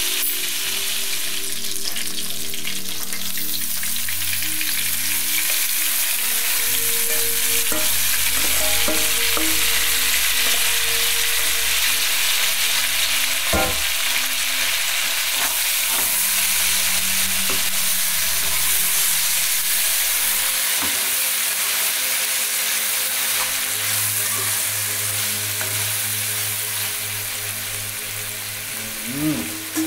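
Pieces of seasoned jack fish frying in a pot, with a steady sizzle and a single knock about halfway through.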